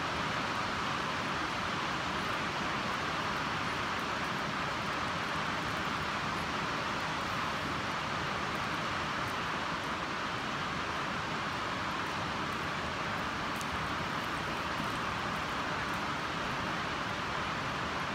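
Steady, unbroken hiss of background noise with no distinct events, only a few faint ticks.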